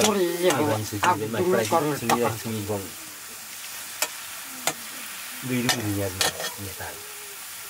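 Metal ladle stirring vegetables frying in an iron karahi, with sharp clicks of the ladle against the pan over a low, steady sizzle. A person's voice is heard over it for the first three seconds and again about two-thirds of the way through.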